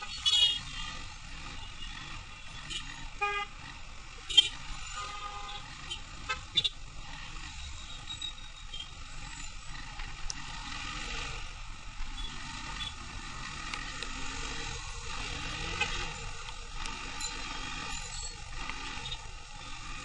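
Street traffic heard from a moving motorcycle on a wet road: a steady road noise with vehicle horns honking several times, loudest just after the start and about four seconds in.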